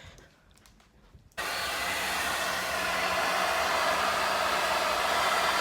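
Handheld hair dryer switched on about a second and a half in, then blowing steadily with a faint low hum under the rush of air.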